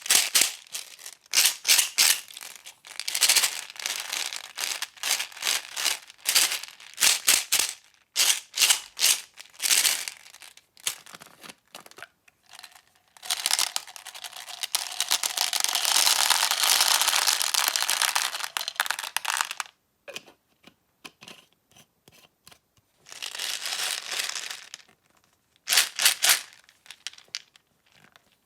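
Close-up crinkling and crumpling of a crinkly material, handled in quick rustling strokes, with one long unbroken rustle about halfway through and a few separate bursts near the end.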